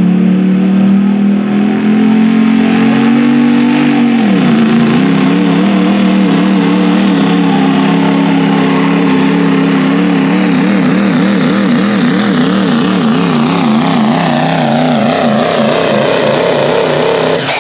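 Duramax turbo-diesel V8 pickup at full throttle pulling a weight sled: loud, its pitch climbing at first, dropping sharply about four seconds in, then wavering rapidly up and down under the heavy load.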